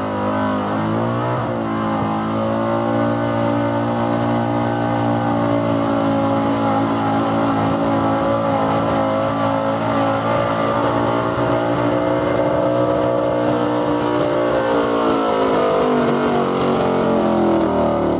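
Engine of a square-body Chevrolet pickup running at high revs under full load while pulling a weight-transfer sled. The revs climb about a second in, hold high and steady, and fall away near the end.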